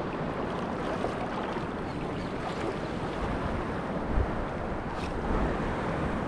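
Sea water washing over the shore reef, with steady wind noise on the microphone. A short low bump comes about four seconds in, and a faint click a moment later.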